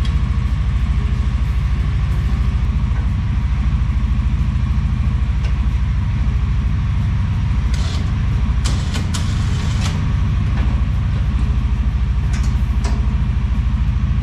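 CFMoto UForce side-by-side's engine idling steadily, with a few light clicks in the second half.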